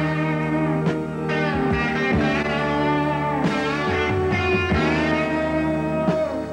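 Background music: a guitar-led instrumental with notes that bend and slide over a steady low line.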